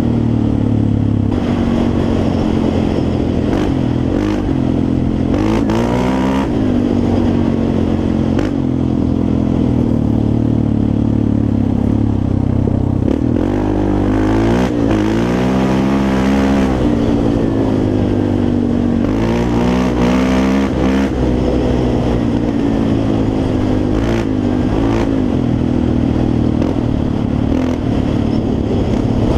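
Yamaha Raptor 350 quad's single-cylinder four-stroke engine running hard under riding, its revs rising and falling again and again as the throttle is worked.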